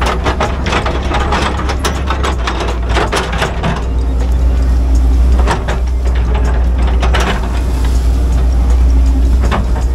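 Excavator's diesel engine running steadily, heard from inside the cab, with the bucket scraping and clattering through soil and stones for the first few seconds. The engine note swells under hydraulic load about halfway through and again near the end.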